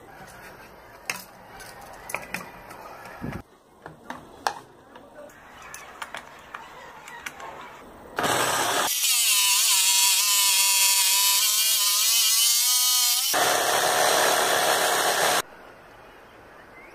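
Scattered light knocks and clicks, then about eight seconds in a jigsaw starts and runs loudly for about seven seconds, cutting a 45-degree miter through a clamped strip of wood. Its pitch wavers as the blade cuts, and it stops abruptly.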